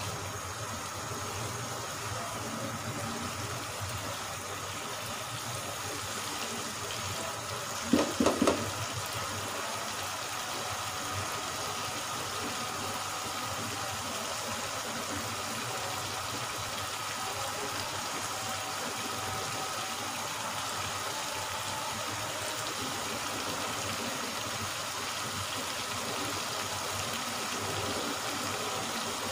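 Kofta masala simmering and sizzling in oil in a pot, a steady bubbling hiss, as the masala fries down until the oil separates. A short, louder sound breaks in once, about eight seconds in.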